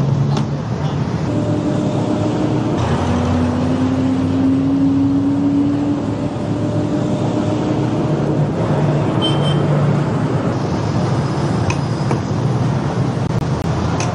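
Road traffic: the engines of passing trucks and buses running steadily, with an engine hum that rises slowly in pitch for a few seconds near the start.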